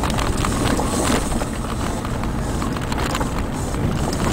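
Inside the cabin of a Toyota RAV4 driving on a rough gravel track: a steady low rumble of engine and tyres on loose stones, with scattered knocks and rattles throughout.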